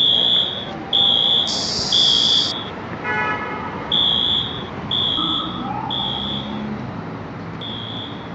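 Wheelock MT fire alarm horns sounding a high electronic tone in the three-pulse evacuation pattern: three half-second blasts, a pause, then three more, repeating. A short hiss cuts in about two seconds in.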